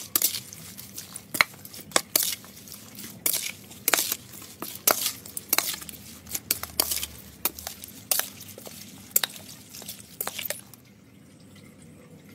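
A spoon knocking and scraping against a dish while tossing a wet spicy squid salad, with irregular sharp clinks over soft squishing. It stops a little before the end.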